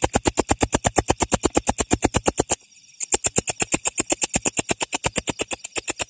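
Belalang kecek (walang kerik) katydid calling: a loud, rapid, even train of sharp chirps, about ten a second, with a brief pause about two and a half seconds in.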